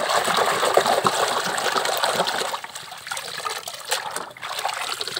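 Hand-washing a plastic toy truck in a basin of muddy water: splashing and sloshing, busiest over the first couple of seconds, then lighter, with another splash about four seconds in.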